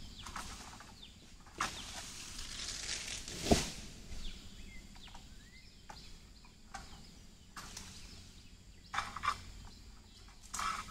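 A pole-mounted harvesting sickle (egrek) cutting and scraping at oil palm fronds: sharp knocks and rustling, with one loud thump about three and a half seconds in.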